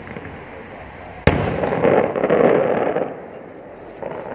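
Aerial firework shell bursting with one sharp bang about a second in, followed by a rapid crackle that lasts about two seconds and then dies down.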